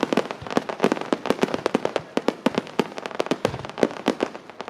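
Fireworks display: a rapid barrage of sharp bangs from bursting shells, several a second, thinning out a little near the end.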